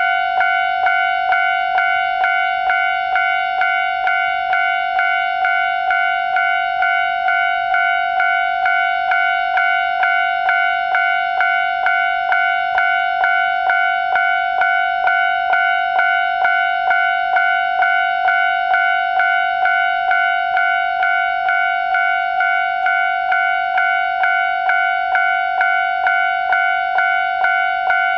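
Railway level crossing warning bell ringing steadily, about two strikes a second, signalling that the crossing is closed for an approaching train.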